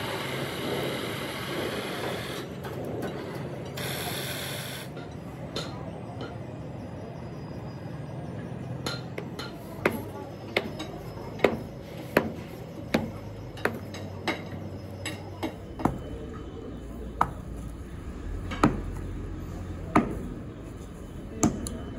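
Hammer blows on metal: sharp ringing clinks, irregularly spaced, about one a second, starting about nine seconds in. Before them a steady rushing noise dies down over the first few seconds.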